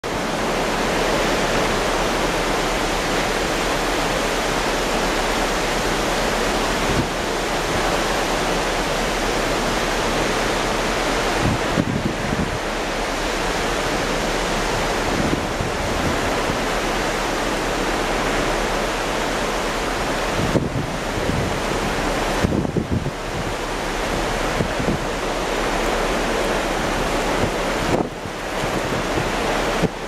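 Steady rush of wind over choppy open sea, with the wash of the waves beneath it. Gusts buffet the microphone several times, strongest about halfway through and again near the end.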